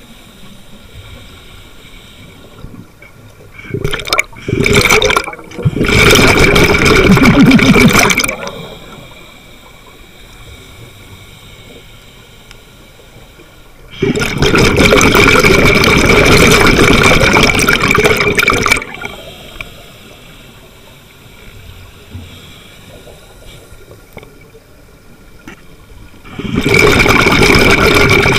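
Scuba diver's breath through a regulator underwater: three loud rushes of exhaled bubbles, each lasting several seconds, about ten seconds apart, with quieter stretches between them.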